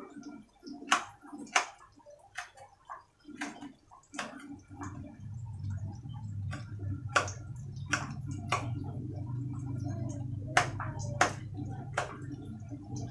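Kitchen knife slicing onion on a ceramic plate: sharp, irregular clicks of the blade striking the plate. A low steady hum comes in about a third of the way through.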